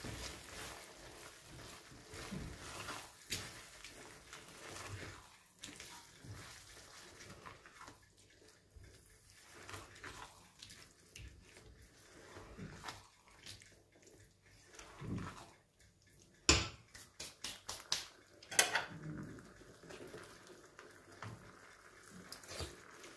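Silicone spatula stirring thick, creamy sauce in a frying pan: soft scrapes and wet squelches against the pan, with a quick run of sharp clicks about two-thirds through and a few single knocks near the end.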